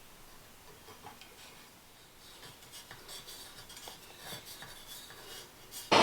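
Faint hand work on plumbing parts: light scraping and rubbing with scattered small metallic clicks. Right at the very end a loud, steady rushing noise starts abruptly.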